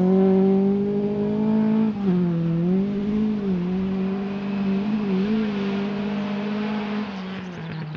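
Rally car's engine running at high revs as the car pulls away down a gravel stage, the note dipping briefly a few times early in the run and then slowly fading with distance.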